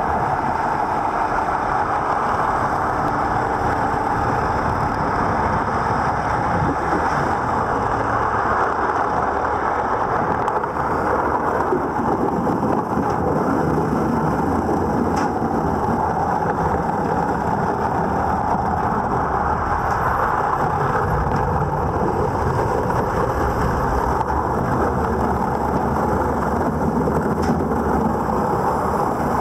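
Underwater hull-cleaning brush machine running against a ship's hull, heard through the water as a steady rushing noise.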